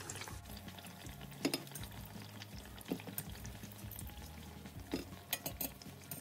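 Aubergine pakoras deep-frying in hot oil in a stainless steel pan, a steady sizzle, with metal tongs clicking against the pan several times as the fried pakoras are lifted out.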